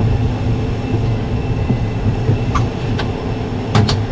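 Steady low hum of a parked airliner's cabin ventilation and onboard power systems, heard inside the cabin with the door open. A few light clicks and knocks sound about two-thirds of the way in and twice near the end.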